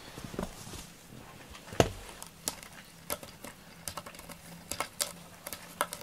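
A cat clawing a corrugated cardboard scratching board: irregular short scratchy rasps and clicks, with one louder knock about two seconds in.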